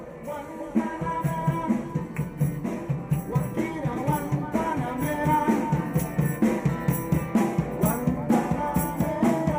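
Live Andean folk music from a small band: strummed guitar and shaken rattle-type percussion keep a fast, steady beat while the men sing. The music comes in loudly at the start.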